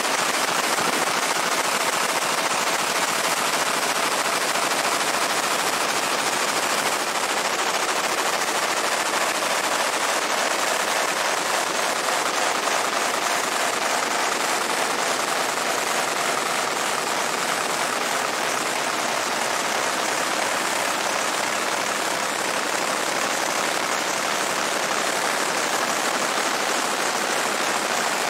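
Fiber laser engraving a Glock 19 slide: a steady, dense crackle of rapid pulses as the beam ablates the metal.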